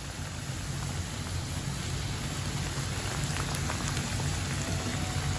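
Flour-and-cornstarch-coated chicken breast pieces frying in hot oil in a pan: a steady, dense crackling sizzle, with a few faint clicks near the middle.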